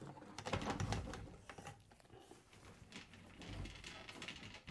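Faint scattered clicks and rustles of hands handling battery cables and parts, a little louder about a second in.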